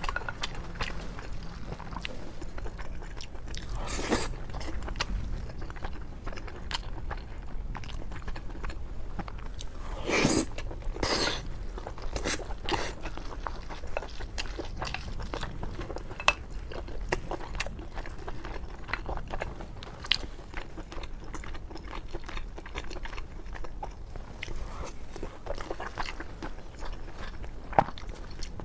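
A person eating a braised pork belly rice bowl close to the microphone: chewing and biting, with small clicks throughout and a few louder, longer mouth sounds, over a steady low hum.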